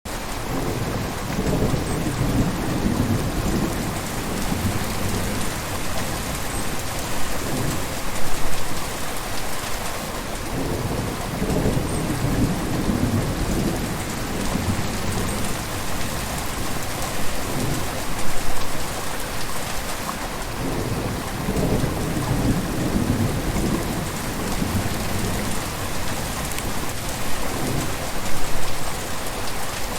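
A gentle river flowing: a steady rush of water, with a deeper, low surge swelling up every few seconds and a slightly louder gush about every ten seconds.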